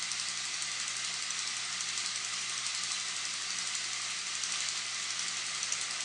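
A toy train's small electric motor running with a steady whirring hiss over a low hum.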